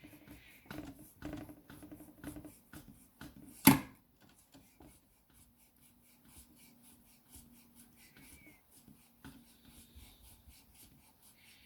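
Sandpaper rubbed back and forth in short strokes, scuffing the mounting spot on the ATV handlebar before the thumb warmer is glued on. One sharp knock comes just under four seconds in, and the rubbing grows fainter after that.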